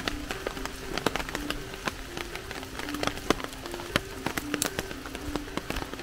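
Rain falling, with many sharp, irregular raindrop ticks close by over a steady hiss. Soft background music of short low notes plays underneath.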